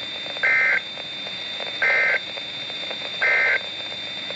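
Emergency Alert System end-of-message signal: three short bursts of two-tone SAME data chirps, about 1.4 s apart, over steady radio hiss. The bursts mark the close of the severe thunderstorm warning.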